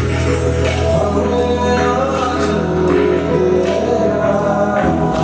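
Live band playing amplified music during a sound check, with a sustained bass line, percussion hits and a voice singing.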